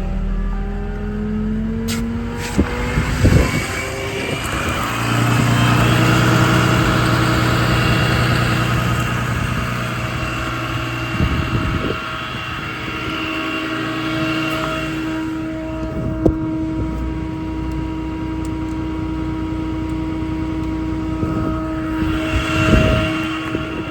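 A 6.7 Cummins diesel truck engine running, rising in pitch over the first couple of seconds and then holding a steady higher speed with a constant whine. A few sharp knocks sound around three seconds in and again near the end.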